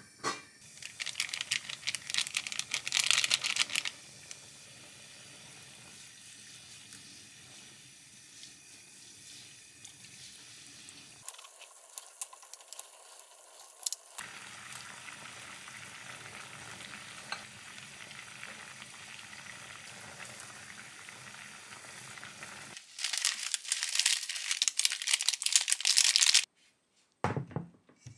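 Food sizzling and frying in a pan, a steady crackling hiss heard in several short segments, with louder bursts of crackling near the start and again near the end.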